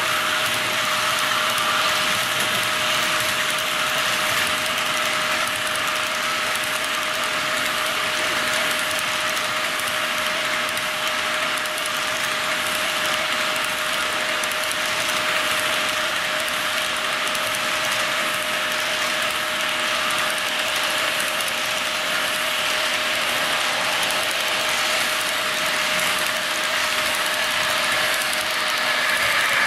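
HO scale model double-stack container train rolling past on its track: a steady, fine mechanical clicking and rattle of the small wheels over the rails, with a steady hum underneath. The hum fades out at the very end as the last of the train goes by.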